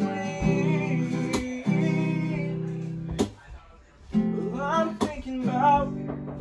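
Acoustic guitar being strummed, chords ringing out between sharp strokes every second or two.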